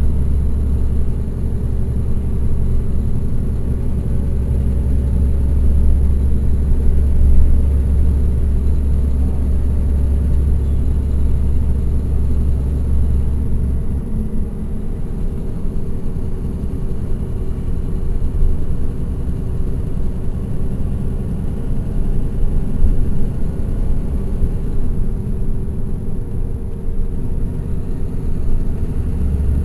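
Caterpillar C13 ACERT inline-six diesel engine of a NABI transit bus running under way, heard from the rear seats inside the bus. Its deep drone eases off about halfway through and comes back near the end.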